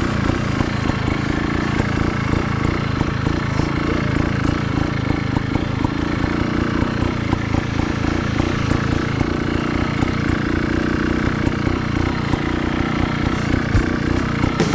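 Sherco X-Ride 290's two-stroke single-cylinder engine running steadily while the bike is ridden.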